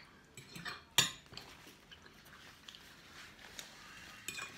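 Metal forks clinking and scraping against dinner plates, with one sharp clink about a second in and a few lighter clicks near the end.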